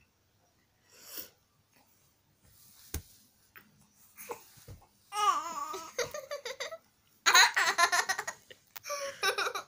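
A child's high-pitched laughter in bursts, starting about halfway through and loudest about three quarters of the way in; the first half is quiet.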